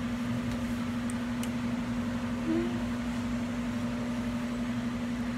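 Steady low machine hum over an even background hiss.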